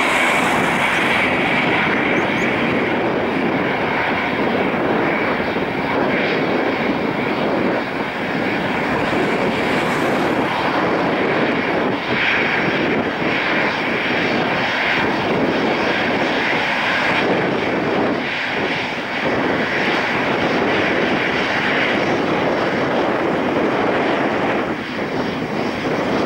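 Airbus A320-214's CFM56-5B turbofan engines at taxi power: a steady rushing noise with a high whine above it that swells and fades slightly as the airliner taxis past.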